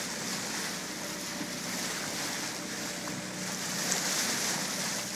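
Steady rush of water along a sailboat's hull at the bow, mixed with wind on the microphone.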